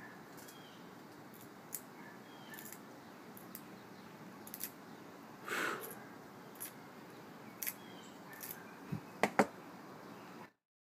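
Pieces of stained glass being cut and nipped by hand with pliers. Scattered light clicks and ticks, a short scrape about halfway through, and two sharp snaps close together near the end, just before the sound cuts off.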